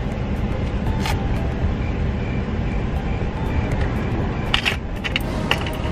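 Van engine idling steadily, with a few short metallic clicks and jingles from small items being handled, about a second in and again near the end.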